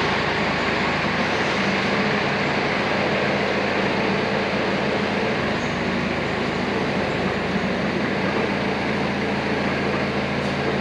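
Forklift engine running at a steady speed with a low hum.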